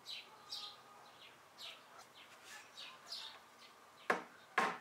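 Birds chirping in short, high notes, then about four seconds in two sharp taps of a small hammer driving a glued walnut plug into a screw hole in a wooden dresser top.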